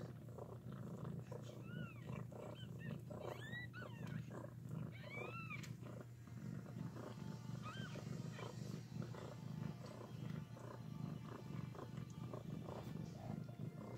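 Mother cat purring steadily while nursing and licking her newborn kittens, with a few thin, high-pitched kitten mews, each rising then falling, in the first half.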